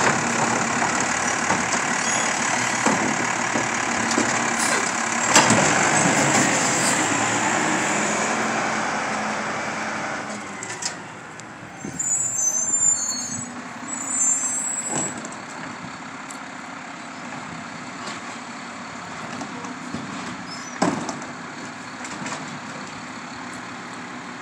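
Automated side-loader garbage truck working its lift arm to tip a cart, engine running loud with a few sharp knocks, the loudest about five seconds in. After about ten seconds the truck drives off and its sound drops to a quieter, more distant engine.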